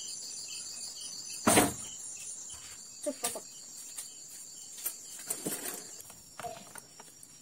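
Crickets and other night insects chirping in a steady chorus. Over it, a sudden loud knock about a second and a half in, then a few scattered light clicks and knocks.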